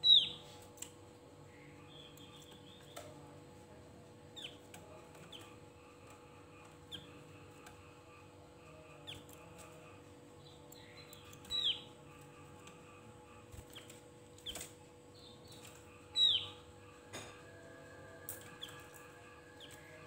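Javan grey-throated white-eye (opior jawa) giving short, sharp, high calls that drop in pitch, spaced irregularly, loudest at the start, about eleven and a half seconds in and about sixteen seconds in, with softer chirps between. A few light clicks as the bird moves about the cage.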